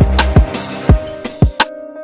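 Background music: a drum beat with deep kick hits over sustained synth tones.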